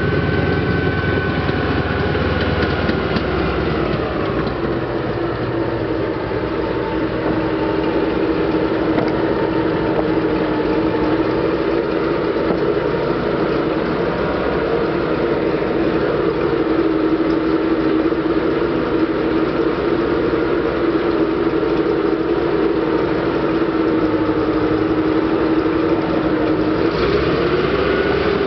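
M39 armored utility vehicle's Continental R-975 radial engine running steadily as the tracked vehicle drives slowly. Its pitch rises near the end as the engine is revved.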